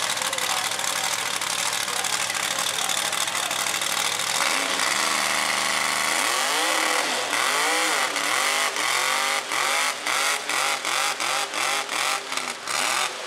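Lifted mud trucks' engines running hard at full throttle during a truck pull. From about six seconds in, one engine's pitch swings up and down over and over, and the swings come faster toward the end.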